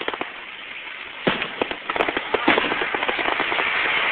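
Fireworks crackling and popping. A few sharp pops come at the start, then from about a second in a fast run of cracks, settling into a dense, continuous crackle.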